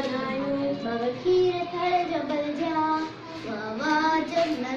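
Schoolgirls singing a Sindhi poem in a sung recitation, unaccompanied, with drawn-out notes that glide from pitch to pitch.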